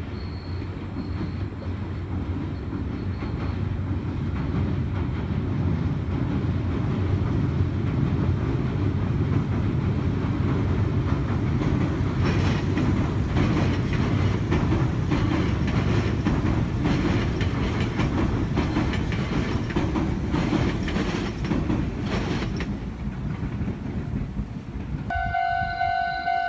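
Meitetsu electric train crossing a steel girder bridge: a low rumble that builds as the train approaches, then a rapid clickety-clack of wheels over the rail joints while the cars pass. Near the end the rumble stops abruptly and a steady electronic signal of several pitched tones begins.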